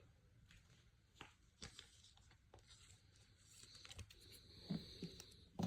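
Near silence with faint clicks and rustles of glossy trading cards being handled and slid through the hand one after another, and a sharper click near the end.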